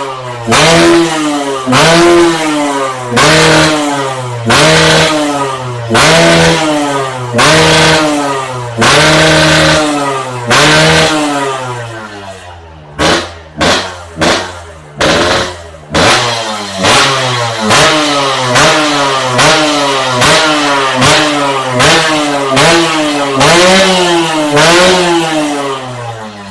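Yamaha RX King's two-stroke single-cylinder engine being revved over and over, each rev rising and falling back. Slow revs come about every second and a half at first, then a few short sharp blips about halfway through, then quicker revs less than a second apart.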